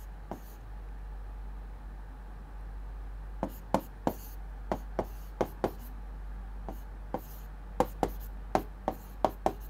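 Pen or stylus tapping and clicking on a digital writing board as a structure is drawn: at first only a steady low hum, then from about three and a half seconds in a scatter of short sharp clicks, two or three a second.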